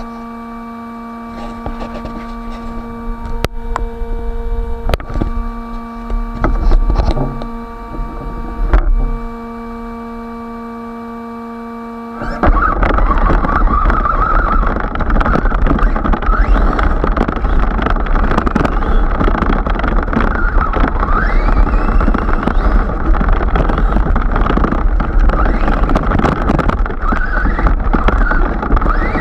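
Electric 1/8-scale Team Magic E6 III BES RC car: for about twelve seconds a steady multi-tone electric hum while it sits still, broken by a few knocks. About twelve seconds in it sets off, and the motor and drivetrain whine, with pitch rising and falling under the loud rush of grass and wind on its onboard microphone.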